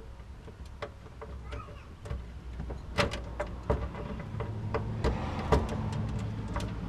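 Scattered light clicks and taps as an aluminium rear diffuser piece and its fastener are worked by hand into place under a car, over a low steady hum that becomes more even about halfway through.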